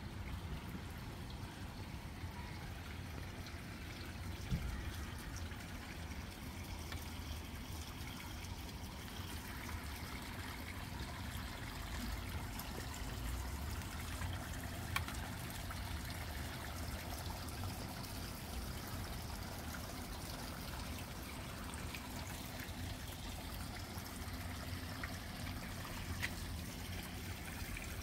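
Water trickling steadily into a small garden pond from its rockery, with a few clicks along the way.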